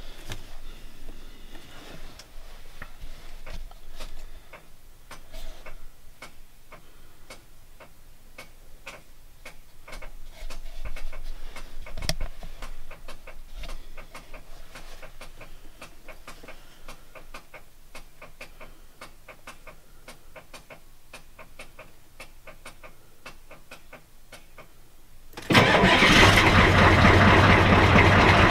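A long quiet stretch with faint scattered clicks, then near the end the Ford 7.3 IDI V8 diesel fires and runs loud and steady. It is a cold start after the truck sat over a week in snow, with no throttle.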